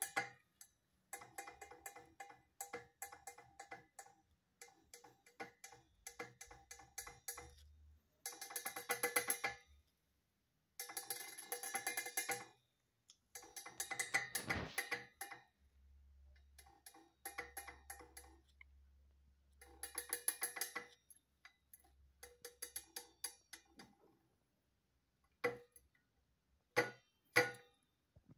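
Cockatiel rapidly tapping its beak against the inside of a stainless steel cup, in runs of quick ticks a second or two long with short pauses between; the metal rings with each run.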